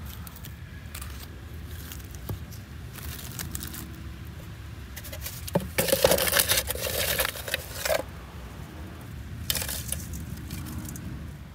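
A metal can scraping and scooping through wood ash and charcoal chunks, with clinks and rattles. It is loudest for a couple of seconds about halfway through, then there is a short rattle as ash is poured from the can into a metal mesh strainer. A low steady rumble runs underneath.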